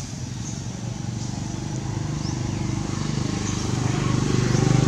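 A motor vehicle's engine running steadily, growing louder from about two seconds in, with faint high chirps over it.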